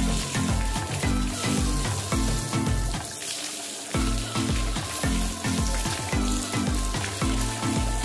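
Background music with a steady bass beat that drops out briefly about three seconds in, over the steady hiss of a garden hose spraying water on a dog's coat.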